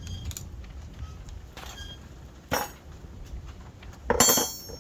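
A few knocks and clinks of equipment being handled, with a short rattle about halfway through and a louder, brighter one near the end.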